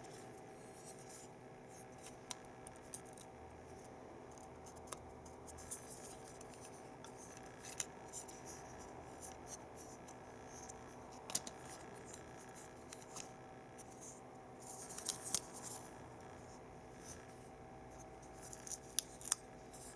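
Small, light clicks and scrapes of the disassembled mouse's plastic parts being handled, scattered irregularly with small clusters about three quarters of the way in and near the end, over a faint steady hum.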